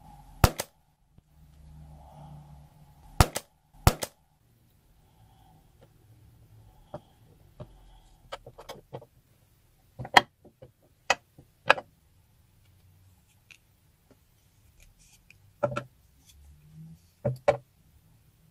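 A string of separate sharp snaps and clicks, the loudest about half a second in as scissors cut into a slime-filled balloon, then lighter clacks and taps as plasticine bars knock together and a blade cuts through clay.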